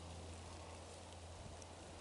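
Faint steady low hum over a soft hiss: quiet background tone with nothing else happening.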